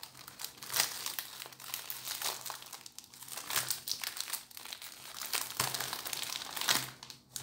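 Thin clear plastic wrap crinkling as it is peeled off a new 3x3 speedcube, in quick, irregular crackles.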